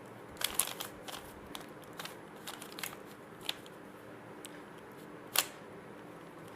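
Standard 3x3 Rubik's Cube being turned by hand: scattered plastic clicks of its layers rotating, at an irregular pace, with one louder snap about five seconds in.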